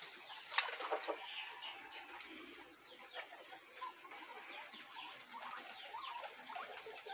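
Faint soft clucking and short chirping calls from penned farm animals, with one sharp click about half a second in.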